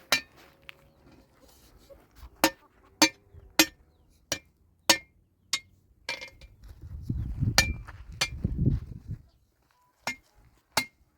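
Repeated sharp metallic strikes, about a dozen at an uneven pace of roughly one every half second to second, each with a short ring. A low rumble rises and fades in the middle.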